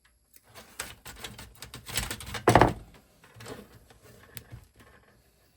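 Electrical wire being stripped and handled by hand: irregular small clicks and rustles, with one louder knock about two and a half seconds in.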